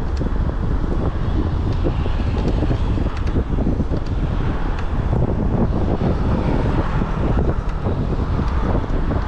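Wind buffeting the microphone while riding an e-bike, with road and traffic noise underneath.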